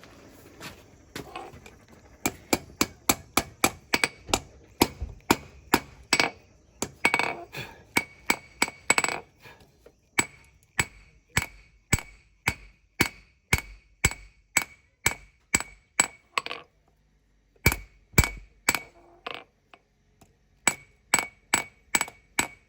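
Hand hammer striking hot spring steel on an anvil, forging a small knife blade: steady blows about two a second, each with a bright metallic ring. The hammering stops briefly twice near the end before picking up again.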